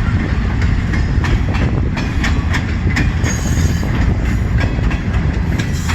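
A CN freight train's cars rolling past at close range: a steady rumble with wheels clacking over rail joints, and a faint high wheel squeal about three seconds in.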